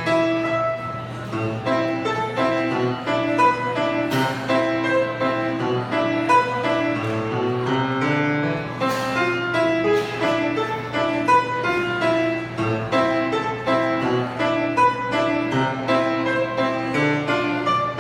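Instrumental music: a solo piece played as a quick run of short, detached notes.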